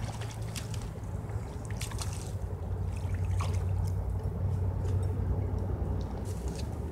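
Hooked trout splashing at the water's surface in short bursts as it is reeled in and swung out of the water, over a steady low hum.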